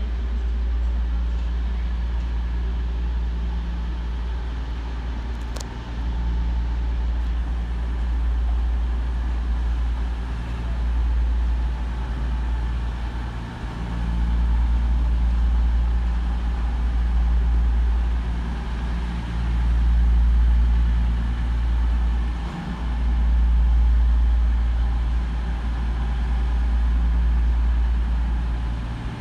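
Diesel train engine running, a steady low rumble with a throbbing note that swells and eases every few seconds.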